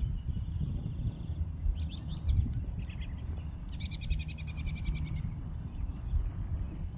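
Bird song: several rapid, high trills and chirps, the longest lasting about a second, over a steady low rumble.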